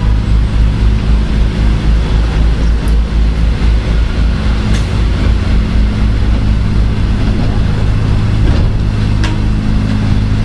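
Aboard a former Tokyu 8000-series electric train: a steady low hum and rumble, with a few faint clicks.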